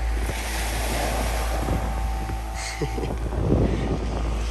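Wind blowing across the microphone as a steady low rumble, over small waves washing up on a sandy beach.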